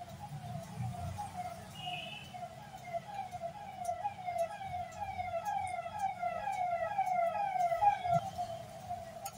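A siren-like tone repeating about twice a second, each note sliding down a little in pitch, going on steadily.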